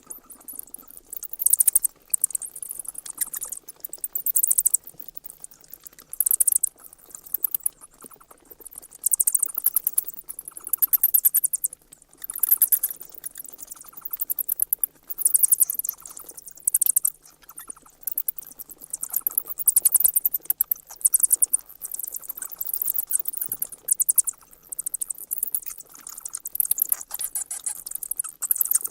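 Bats squeaking: rapid, very high-pitched chirps and clicks in bursts of about a second, coming again every second or two.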